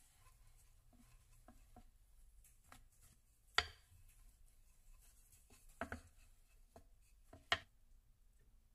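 Wooden rolling pin working soft rice-flour dough on a floured wooden board: quiet rolling, broken by a few sharp knocks of the pin on the board, the loudest about three and a half seconds in, a double knock near six seconds and another near seven and a half.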